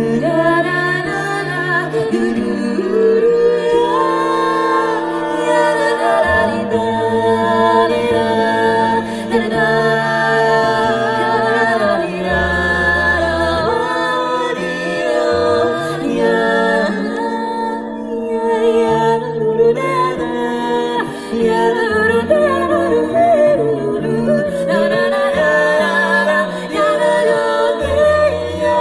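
Unaccompanied vocal group singing a cappella in close harmony, with a sung bass line stepping between low held notes. It is a wordless passage of the song, voices only, no instruments.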